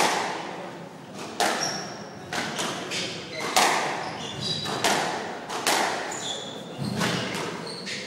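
Squash rally: about ten sharp hits of the ball on rackets and the court walls, each echoing in the court. Short high squeaks of shoes on the wooden floor come between the hits.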